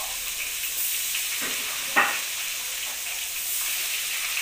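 Battered pieces deep-frying in hot oil in a wok, a steady sizzle. A single sharp knock about two seconds in.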